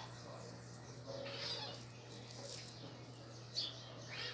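Cat mewing: a couple of short, high calls, one about a second in and one near the end, over a steady low hum.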